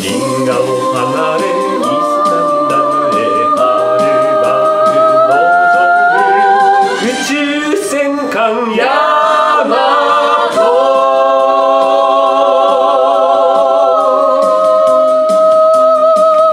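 Recorded a cappella vocal harmony: several voices singing together, with quick runs of notes in the middle and long held chords with vibrato near the end.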